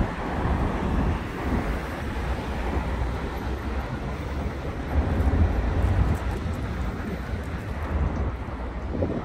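Wind buffeting the microphone, a low rumble that swells and fades, over the steady hum of road traffic.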